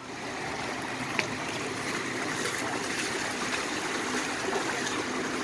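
A shallow river flowing steadily over rocks, with a trickling, rushing sound.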